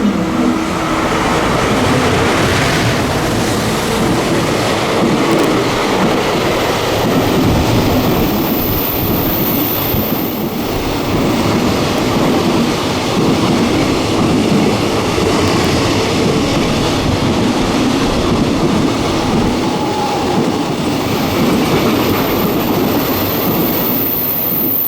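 Electric train passing through a station platform at speed without stopping: a loud, steady rush of wheels on rails and cars going by.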